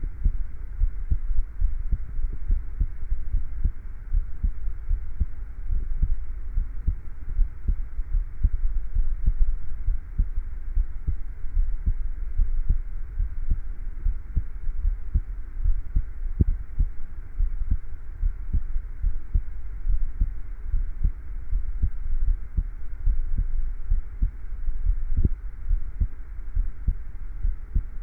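A person's heartbeat recorded close up: a steady run of low thumps, over a faint steady hiss.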